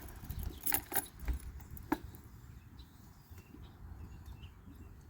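A few light metallic clicks and rattles in the first two seconds, like small metal parts or keys being handled, then only faint background noise.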